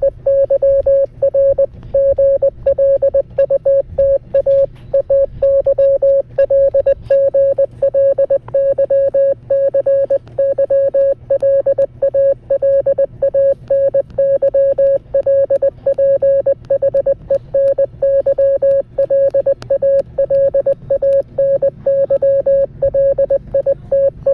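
Morse code played as a single mid-pitched beep keyed rapidly on and off in short dots and longer dashes, one long unbroken run of characters.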